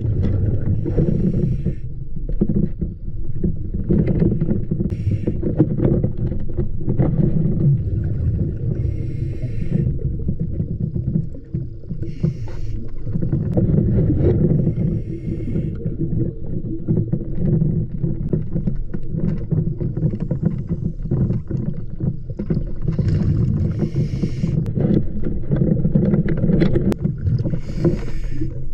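Underwater sound from a diving camera in a river: a steady low rumble of water, broken every few seconds by short bursts of hissing bubbles, typical of a diver exhaling.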